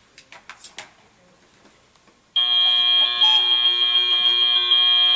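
End-of-match buzzer from the FTC field scoring system: a loud, steady, harsh tone that starts about two seconds in and holds for about three seconds, marking the end of the two-minute driver-controlled period. A few faint clicks come before it.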